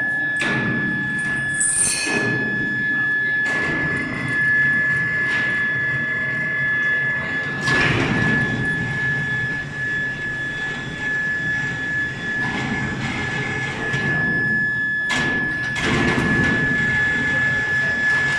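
Medium-frequency induction melting furnace giving a steady high-pitched whine, with several clanks and thuds of foundry work over it.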